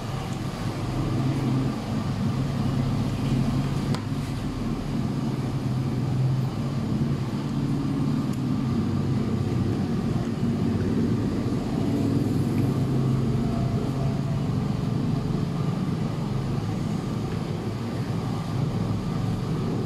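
A steady low motor rumble, with its strongest part a low hum that holds throughout.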